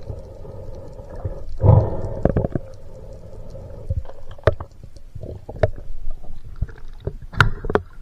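Muffled underwater sound picked up through an action camera's waterproof housing: a low rumbling burst about two seconds in and scattered sharp clicks and knocks, then louder clicks and water splashing near the end as the camera comes up through the surface.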